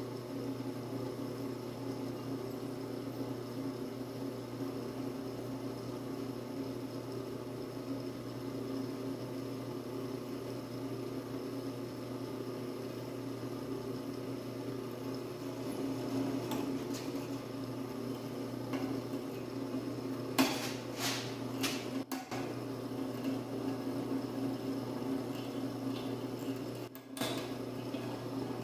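Floor-standing drill press running steadily while a pilot bit drills through clamped steel plate, a constant motor hum. A few sharp metallic clinks come about twenty seconds in and again near the end.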